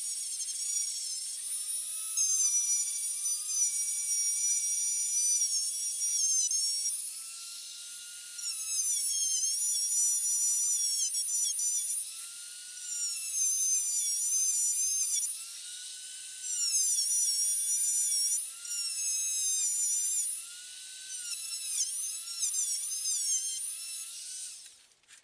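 Small handheld rotary tool whining at high speed, cleaning oxidation off an aluminium antenna connector. It comes in stretches of a few seconds, its pitch dipping and recovering as the bit is pressed against the metal and eased off.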